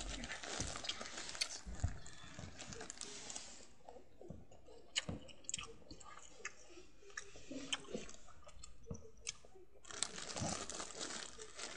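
Someone chewing a snack close to the microphone, with scattered small clicks and rustling.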